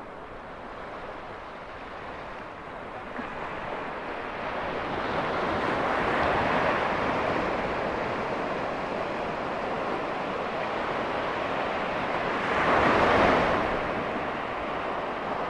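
Ocean surf breaking and washing in: a steady rush of water that swells about five seconds in and peaks again with a louder break near the end.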